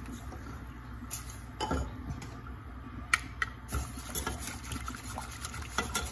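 Wire whisk and wooden spoon stirring a thick flour, butter and water paste for béchamel in a stainless steel saucepan. Scattered clicks and scrapes of the utensils against the pot sound over a steady low hum.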